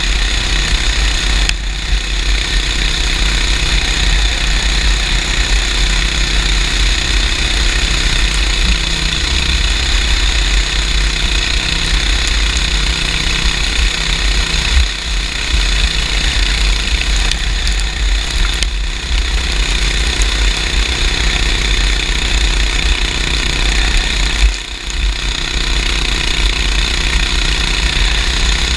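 Junior sprint car engine running hard at racing speed, a steady, rapid rattling drone that dips briefly a few times.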